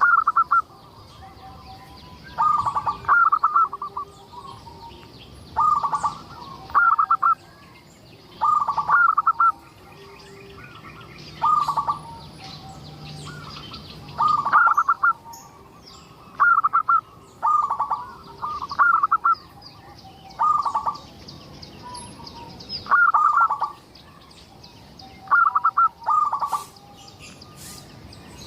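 Zebra dove (perkutut) singing its staccato cooing song: short phrases of rapid notes, repeated about every two to three seconds.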